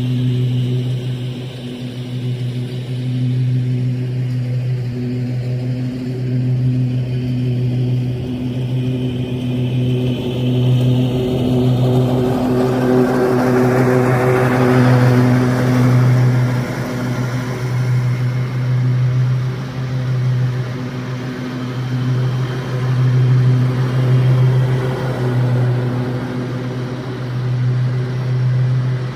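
Lawn mower engine running steadily at a constant pitch, with a louder rushing swell about halfway through.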